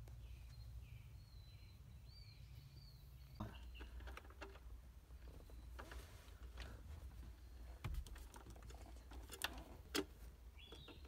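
Scattered light clicks and knocks of hands working at a Fox Body Mustang's ECU and its mounting under the dashboard, beginning a few seconds in, with the sharpest knocks near the end, over a faint low hum.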